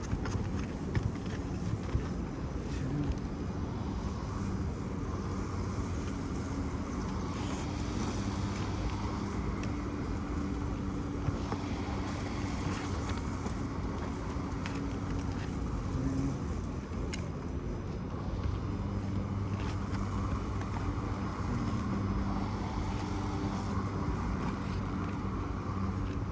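A vehicle engine running steadily with a low hum, with a few light clicks and taps from a nail-removal tool working on asphalt shingles.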